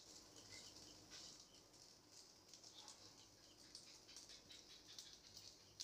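Faint sizzling and crackling of a wheat rava dosa with oil cooking on a hot cast-iron tawa, with small scattered pops.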